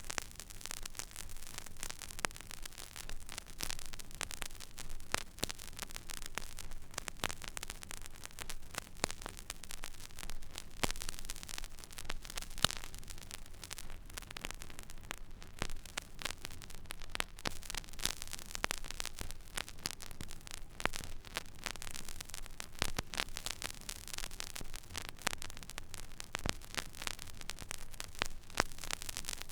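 Stylus riding an empty vinyl record groove: steady surface hiss with many scattered crackles and pops, over a low hum.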